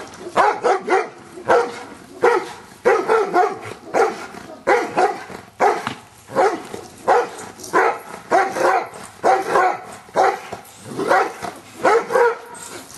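Giant Schnauzer barking over and over in a steady rhythm, about one bark every three-quarters of a second.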